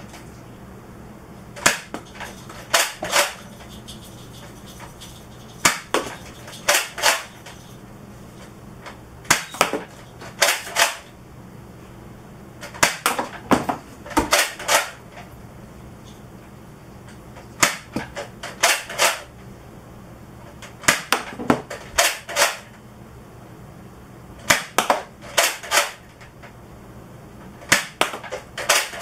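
Nerf Elite 2.0 Echo spring blaster being primed by hand and fired over and over, about eight times at intervals of three to four seconds. Each cycle is a quick group of sharp plastic clacks as the priming handle is pulled back and the spring plunger fires a dart.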